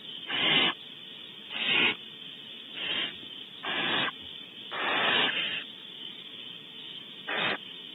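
Barn owl owlets giving hissing food-begging calls: six loud hisses at uneven intervals, a few under half a second and one nearly a second long, over a steady background hiss.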